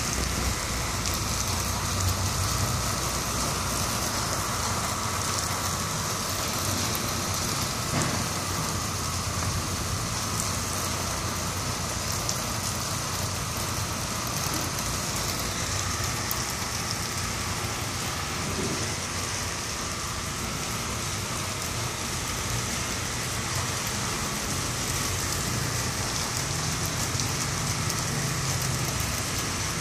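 Heavy rain pouring steadily, with cars passing on the wet road.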